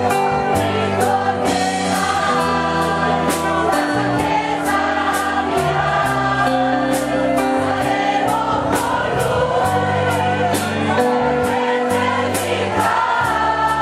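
A gospel hymn sung by a group of voices with a live band: electric guitar, flute and keyboard over a steady beat.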